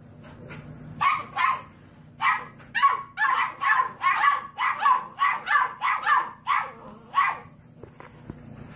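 Puppy barking: a quick run of about fifteen short, high-pitched barks, two to three a second, stopping shortly before the end.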